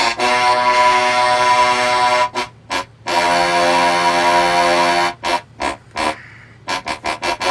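Horn of a 2002 Cadillac DeVille sounded in a rhythm of short honks broken by two long blasts of about two seconds each, the second on a slightly lower chord, over a steady low hum.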